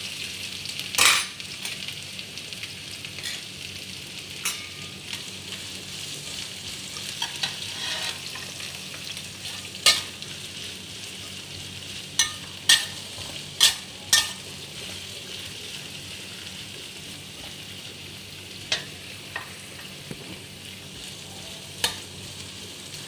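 Chopped winged beans sizzling in hot oil in a steel wok, stirred with a metal spatula that knocks against the pan about nine times at scattered moments.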